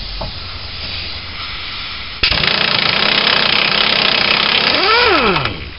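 Pneumatic impact wrench with a leaking air fitting: a steady air hiss, then about two seconds in the wrench hammers loudly for about three seconds on the Pitman arm's center-link nut, its pitch swinging up and down just before it stops as the nut comes right off.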